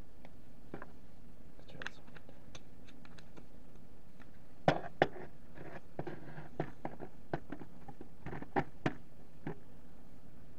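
Handling noise: scattered clicks, taps and light scrapes of small objects being worked by hand, with two sharper clicks close together about halfway through.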